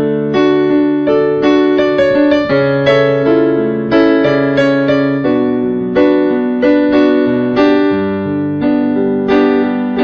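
Solo piano music: chords and a melody struck in a steady rhythm, each note ringing and fading.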